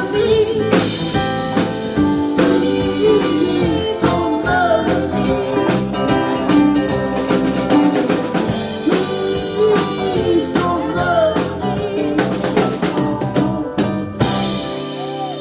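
Live rock band playing with drum kit, electric guitars, bass guitar and keyboard, the guitar lines bending in pitch. Near the end the drums stop while the guitars and keyboard hold a ringing chord, as the song closes.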